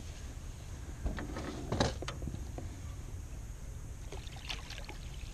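A few short knocks and splashes at the side of a small boat as a hooked fish is brought alongside and netted, the sharpest about two seconds in, over a steady low rumble.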